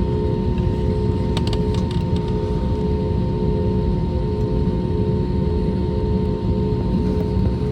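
Airbus A320neo jet engines running steadily: a dense low rumble with a steady whine on top.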